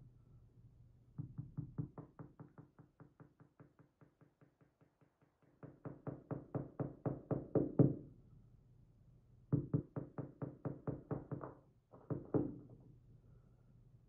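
Rapid, even knocking of metal lock cylinder parts on a rubber bench mat, about five knocks a second, in four runs that swell and fade.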